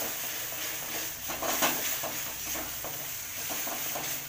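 Wooden spatula stirring and scraping a thick onion-tomato masala paste around a metal kadai in short repeated strokes, about three a second, over a steady sizzle of the paste frying in oil.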